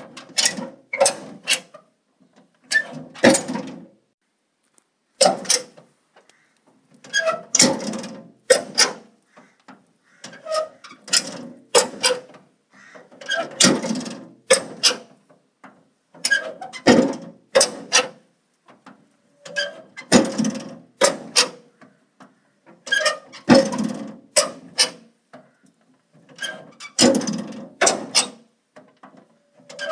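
Metal door being opened and closed over and over: a cluster of sharp metallic clicks and clanks from the latch and door about every two to three seconds, with a short ringing tone.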